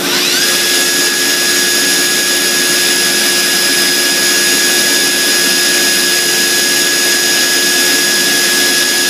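Northwood NW 58 CNC router spindle spinning up, with a whine rising over about the first half-second, then running steadily at speed with a high whine over constant machine noise.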